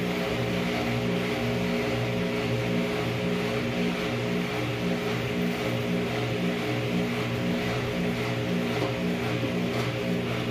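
A steady electric machine hum from running basement laundry appliances, pulsing slightly in level about one and a half times a second.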